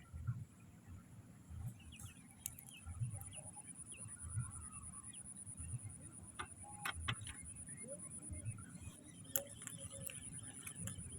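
Faint short goose calls over a steady high-pitched insect drone, with soft low thuds about every second and a half.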